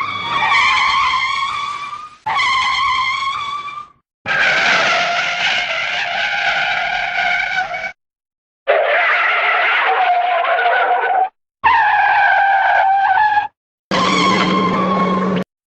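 Car tyre screech sound effects played back to back: six separate screeches, each one to four seconds long, cut apart by short silences.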